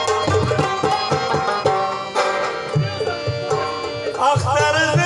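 Pashto folk music: a rabab plucks a quick melodic line over hand-drum strokes. A man's singing voice comes in near the end.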